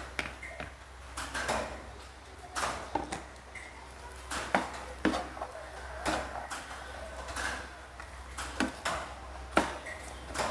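Wooden spatula knocking and scraping against a non-stick frying pan while stirring fried rice, in irregular strokes about once a second.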